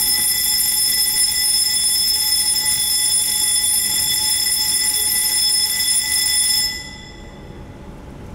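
An electric alarm bell ringing loudly and steadily, stopping suddenly about seven seconds in.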